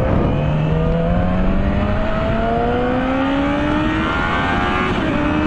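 Yamaha R6 inline-four sport bike engine accelerating, its pitch climbing steadily through one gear, with a quick upshift near the end before it pulls again. Steady wind rush over the rider's helmet-mounted microphone.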